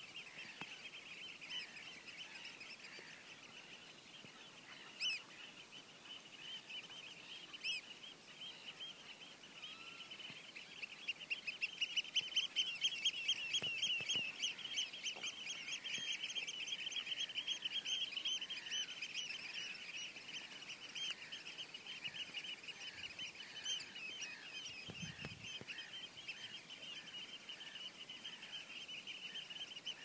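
Tideland ambience: a dense chorus of many birds calling in quick, overlapping bursts. It swells louder for several seconds in the middle and then eases back. A couple of sharper single calls stand out in the first ten seconds.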